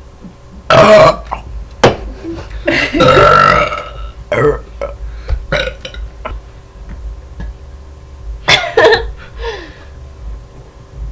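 Girls burping on purpose, several loud burps in a row: a short one about a second in, a longer drawn-out one about three seconds in, then shorter ones, with another pair near the end.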